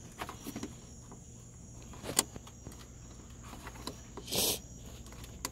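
A few sharp plastic clicks and a short scrape as a tight headlight bulb is twisted in its socket by hand, over a steady low hum.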